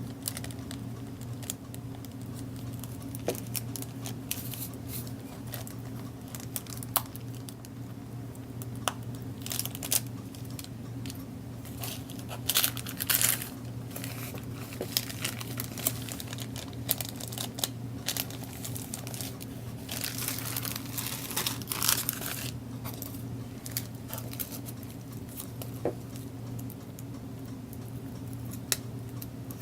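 Cellophane bag crinkling as it is handled, with scattered small clicks and two longer crackly rustles, about twelve and twenty seconds in.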